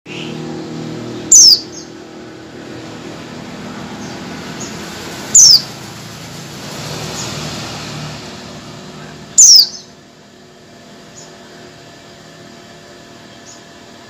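Female white-eye (pleci) giving three loud, short, down-slurred calls about four seconds apart, followed by a few faint chirps. A steady low rumble runs underneath and drops away about ten seconds in.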